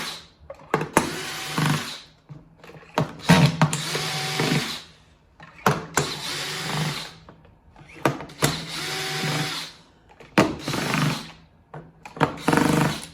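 Cordless drill/driver with a Torx 20 bit backing out the chassis screws of an Ambrogio robotic lawn mower, in about six short runs of its motor with brief pauses between screws.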